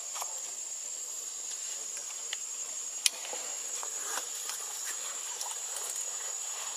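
Steady high-pitched insect drone, with faint scattered ticks and one sharp click about three seconds in.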